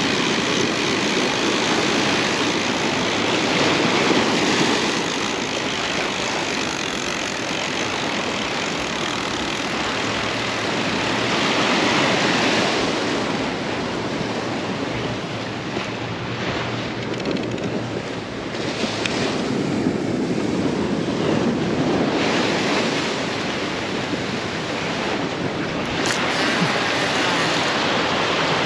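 Ocean surf washing onto the shore, with wind buffeting the microphone; the rush swells and eases every several seconds. A brief click sounds near the end.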